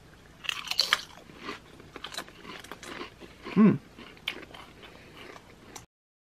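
Two people biting and chewing Pringles potato crisps: a run of irregular crisp crunches, with a murmured "hmm" partway through. The crunching cuts off abruptly near the end.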